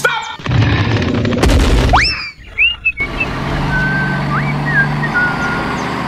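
A steady low motor hum, cut off abruptly several times. A loud rumbling burst comes about a second and a half in, and short whistle-like tones slide up and down after it and again near the end.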